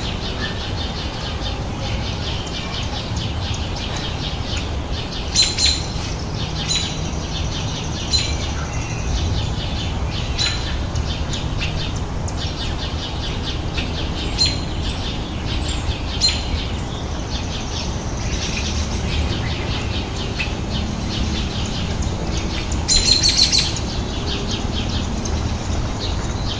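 Short, high bird chirps at irregular intervals every second or few seconds over a steady low rumble, with a quick run of several chirps near the end.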